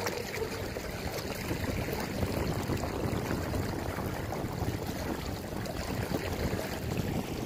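Water rushing and splashing along the hull of a small plywood mini boat under way, a steady wash.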